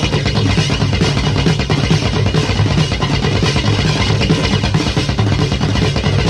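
Electric blues-rock band recording playing an instrumental passage: electric guitar, bass and a steadily beating drum kit, with no singing.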